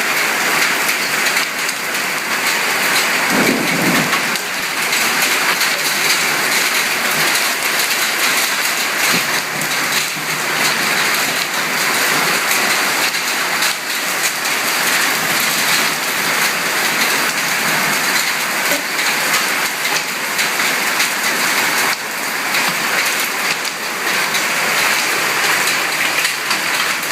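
Hailstorm: hailstones pelting down heavily as a dense, steady hiss of countless small impacts, with a brief low rumble about three seconds in.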